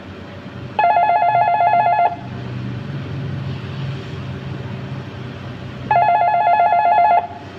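Desk telephone ringing twice with an electronic warbling trill. Each ring lasts just over a second, and the rings come about five seconds apart. The call is answered moments later.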